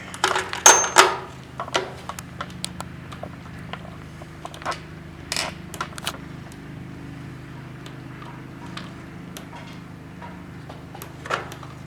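Irregular clicks and knocks of hand tools and parts being handled while the air box is removed from a Honda Rancher ATV, with a cluster of louder knocks near the start, over a steady low hum.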